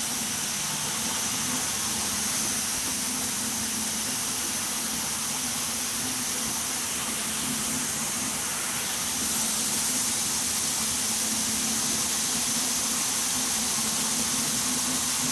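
Spandex yarn covering machines running on a mill floor, winding elastic yarn onto cones: a steady high hiss over a constant low hum.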